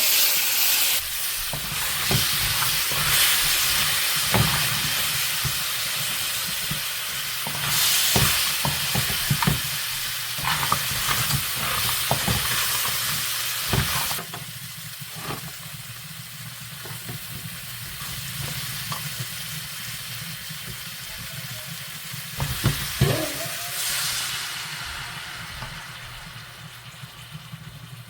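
Crab pieces frying in a pot of hot oil and burnt curry, sizzling hard, with a spoon knocking against the pot as they are stirred. The sizzle dies down from about halfway through.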